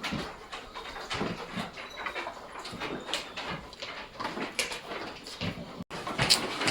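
Sheep-pen commotion: a restless Nellore Jodipi ram pulling and scuffling, with irregular knocks and scrapes and short animal cries.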